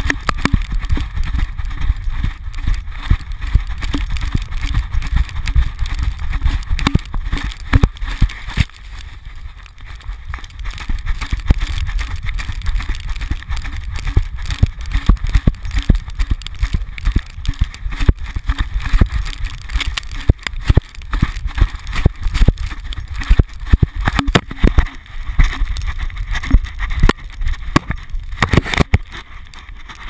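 A dog bounding through deep snow, heard through a camera strapped to its back: a fast, uneven run of heavy thuds from its gait jolting the mount, mixed with rustling, easing for a couple of seconds about nine seconds in.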